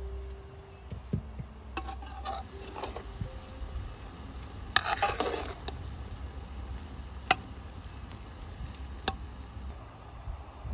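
Metal ladle stirring rice in an aluminium pot, scraping through the grains and clinking against the pot, with a busy stretch of scraping about halfway and two sharp ringing knocks of metal on metal later on. A steady low rumble runs underneath.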